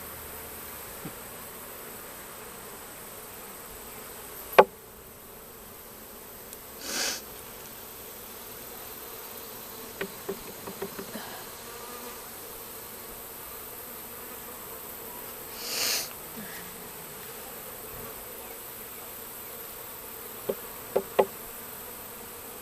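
A swarm of honey bees buzzing steadily, broken by a sharp knock about four and a half seconds in, a few lighter knocks around ten seconds and three more near the end, with two brief rushing noises.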